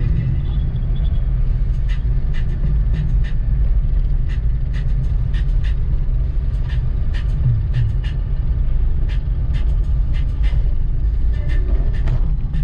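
Steady low rumble of a car driving, heard from inside the cabin, with a light, irregular clicking over it, a few clicks a second.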